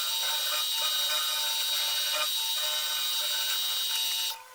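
Milling machine running with a steady high whine while its cutter plunges into a metal plate to cut a keyhole slot. It shuts off suddenly just before the end.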